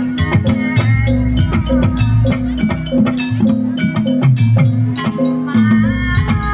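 Javanese jaranan gamelan ensemble playing gending srampat: a fast, even rhythm of struck metal-key notes over kendang drum strokes and sustained low gong tones.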